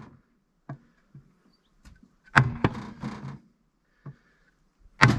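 Sledgehammer blows on a wooden board held against a bent aluminium alloy wheel rim, beating the dented lip back into shape. A few lighter knocks, then two heavy blows about halfway through and at the very end, each with a short low ring.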